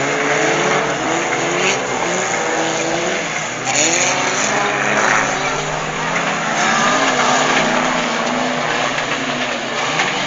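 Several fun-car racing engines revving on a dirt track, their pitches rising and falling over one another as the cars accelerate and lift off, over a dense wash of noise. Louder rushes of noise come about four and five seconds in.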